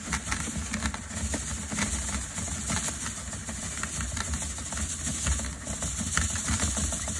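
Playground sand being shaken on an adjustable window screen and sifted through it: a steady rattling hiss of grains, full of small ticks, over a steady low rumble.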